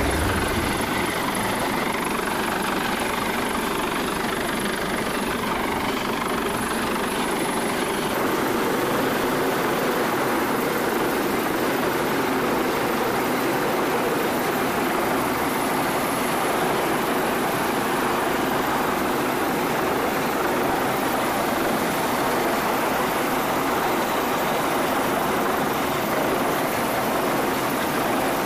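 MH-65 Dolphin helicopter hovering overhead: a steady, unbroken rush of turbine and rotor noise, shifting slightly in tone about eight seconds in.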